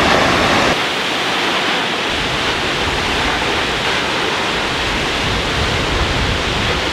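Large waterfall pouring into a rock pool: a loud, steady rush of water, slightly quieter from just under a second in.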